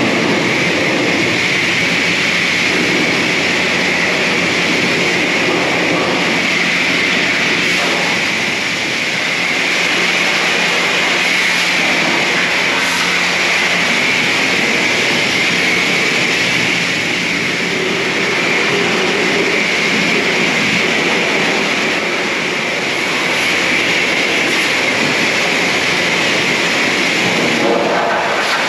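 Self-serve car-wash spray wand hissing steadily as it sprays pre-soak degreaser over a car's engine bay.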